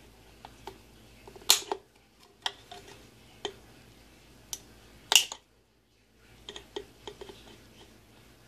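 Diagonal cutters snipping the small plastic locking tabs off the neck of a Lysol No-Touch soap refill bottle: a series of sharp snaps roughly a second apart, the loudest about a second and a half in and about five seconds in, with lighter clicks from the cutter jaws between them.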